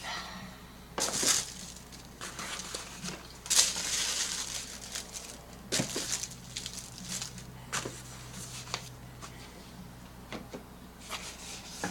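Packaging being handled: irregular rustling and crinkling with scattered clicks, loudest about a second in and again around the middle.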